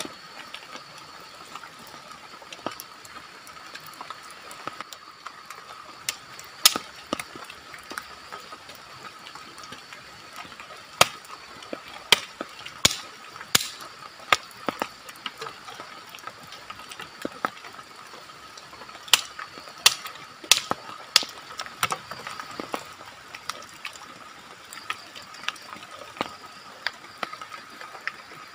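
Sharp, irregular clicks and knocks of dry sticks being handled and laid down on the forest floor, over a steady high drone in the background.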